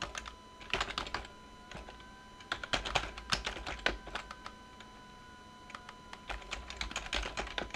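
Computer keyboard typing: quick bursts of keystrokes with short pauses between the bursts.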